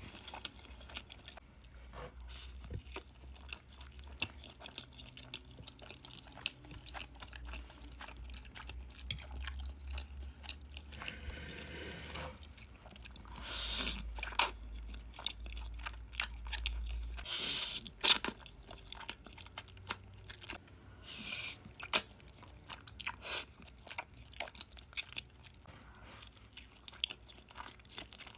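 Close-miked eating: crunchy bites and chewing, with a run of small crackles and several louder crunches scattered through.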